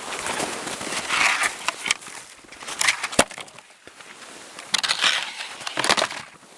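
Snow crunching under footsteps, in uneven spells, with a sharp crack about three seconds in.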